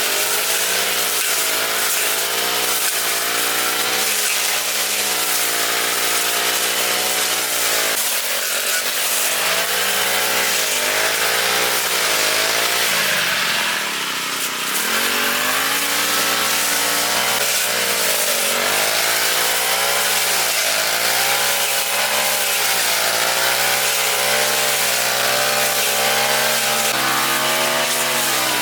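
Small engine of a lawn mower running continuously while cutting grass, its speed sagging and recovering again and again as the load changes, with the deepest dip about halfway through.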